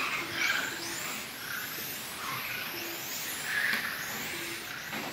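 Electric 1/10-scale touring cars racing on a carpet track: several high-pitched brushless motor whines overlap, each rising and falling in pitch as the cars accelerate down the straights and brake into the corners.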